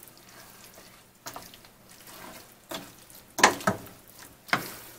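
A black plastic slotted spoon stirring rotini in a creamy sauce in a metal skillet: a wet squelching with a few short scrapes and knocks against the pan, the loudest about three and a half seconds in.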